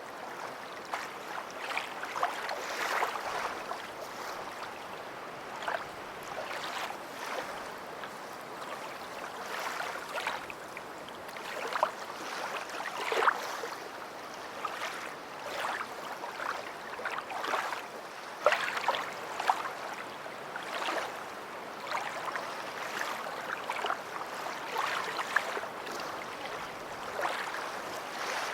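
Small waves lapping at the shore: a steady wash broken by many short, irregular splashes, a few louder than the rest.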